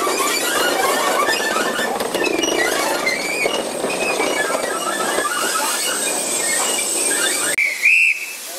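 Steel wheel flanges of railway carriages squealing on curved track: a dense run of high squeaks over the running rumble of the train. It cuts off suddenly near the end, followed by one short, loud high tone.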